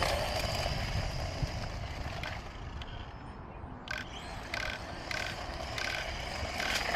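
Battery-powered RC car running flat out across asphalt, its electric motor whine and tyre noise thinning out as it moves away, then growing again near the end.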